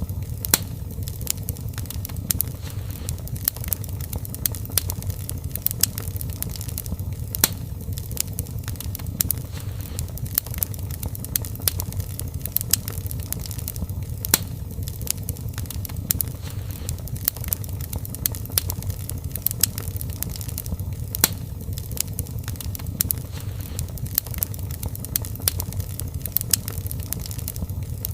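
Wood fire crackling: a steady low rumble of flames with many sharp, irregular pops and snaps.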